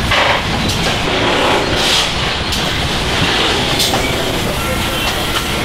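Car assembly plant floor noise: a steady, dense din of machinery, with a few brief sharper noises standing out.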